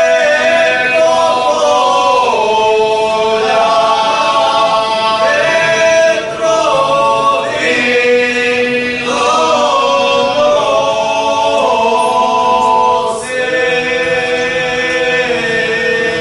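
Five-man male vocal group singing a traditional Serbian folk song a cappella, in long, drawn-out held notes phrase after phrase. The last phrase is a long held chord that ends right at the close.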